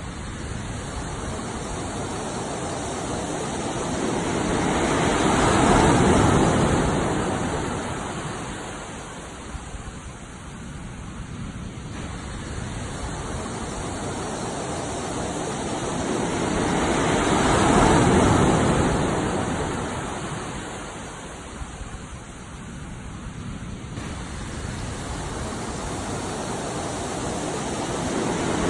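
Ocean waves washing in, a steady rush of surf that swells to a peak and falls back about every twelve seconds.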